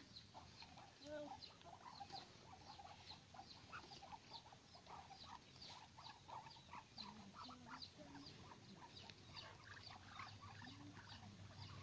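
Faint, quick soft clicks of a white domestic rabbit chewing grass blades, with a few low hen clucks in the background.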